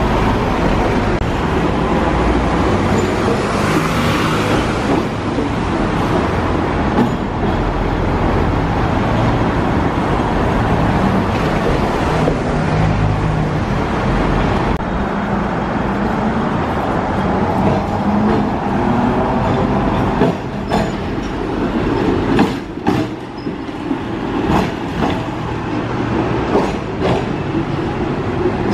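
Street traffic: a double-decker bus's diesel engine running as it pulls past close by, then a steady mix of passing buses and cars. In the second half a series of sharp, irregular metallic clacks, like tram wheels crossing rail joints and points at the junction.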